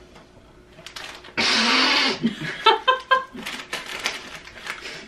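A loud breathy vocal outburst about a second and a half in, lasting about half a second, followed by short bursts of laughter and the crinkle of a plastic snack bag as a hand reaches into it.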